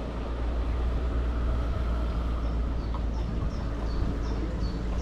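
A songbird sings a run of short, high chirps alternating between two pitches, starting about halfway in, over the steady low rumble of the boat under way with wind on the microphone.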